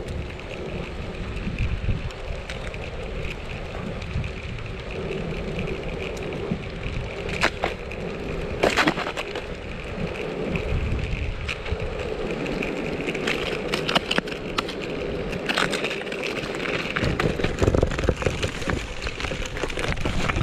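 Off-road skateboard's air-filled wheels rolling over pavement, a steady rumble with a few sharp cracks and clicks as the board is towed along by a dog.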